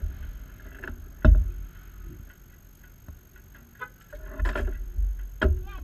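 Low rumble of a Yamaha YXZ1000R side-by-side's three-cylinder engine at idle while the machine sits still. Sharp knocks in the cab cut through it, the loudest about a second in and more near the end.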